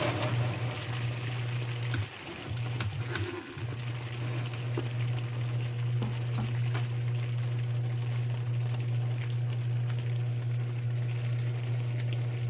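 A tanquinho (small top-loading washing machine) running, its motor giving a steady low hum while the agitator churns the water in the tub. The hum briefly drops out about two seconds in and again a little later.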